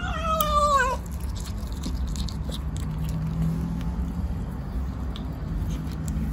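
A kitten meows once, about a second long and falling in pitch, then chews and bites on meat with many small wet clicks and smacks.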